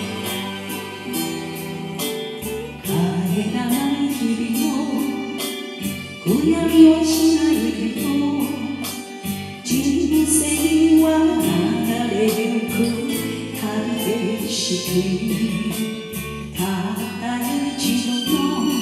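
A woman singing a slow Japanese enka song over a full band backing track. The voice comes in about three seconds in, after a short instrumental phrase.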